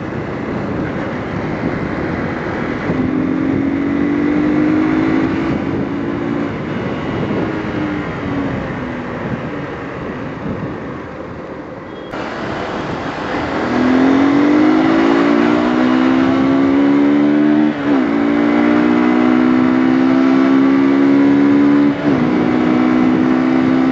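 Hero Xtreme 200R's single-cylinder 200 cc carburetted engine pulling hard, its pitch climbing steadily in the second half with two brief drops at quick upshifts. A steady rush of wind and tyre noise on the wet road runs underneath.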